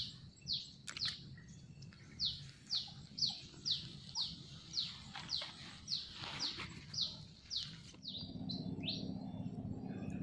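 A bird calling a short, falling whistled note over and over, about twice a second, for most of the stretch. About eight seconds in a low steady drone sets in underneath.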